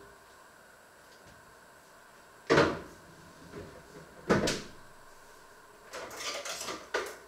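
Kitchen cupboard doors being opened and shut: two sharp bangs nearly two seconds apart, then about a second of rattling and clattering ending in another knock near the end.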